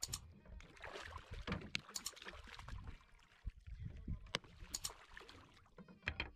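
A hooked fish thrashing at the surface beside a wooden boat as it is hauled in on a handline: several sharp splashes and knocks against the hull over a low watery rumble.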